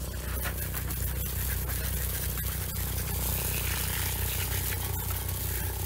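Water from a garden hose spray gun jetting onto a car's side panels and wheel: a steady hiss of spray on the bodywork, over a steady low rumble.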